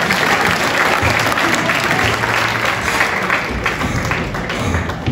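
Audience applauding, with music playing underneath; the applause thins near the end.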